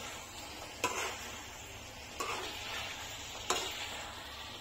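Mutton liver sizzling in a hot pan as it is stirred with a spoon, with three sharp knocks of the spoon against the pan about a second and a half apart. The liver is being fried down until the last of its liquid dries off.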